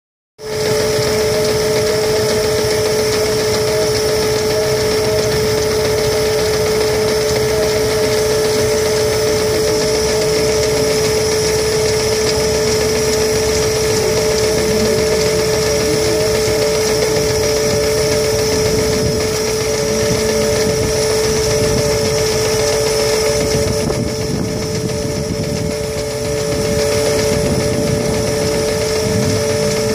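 Threshing machine drum running at speed: a steady hum on one held tone over a mechanical rumble, dipping slightly in loudness about 24 seconds in.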